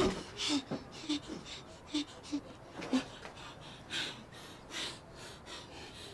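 Quick, shaky gasping breaths with small voiced whimpers, a couple each second: frightened breathing.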